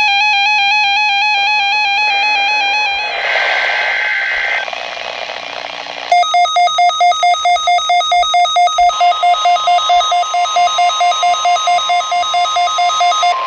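Electronic alarm sounds: a wavering buzzy tone, a patch of hiss, then rapid pulsed beeping about three to four times a second. About two-thirds of the way in, the steady, single-pitch warning alarm tone of NOAA Weather Radio starts underneath the beeps and holds.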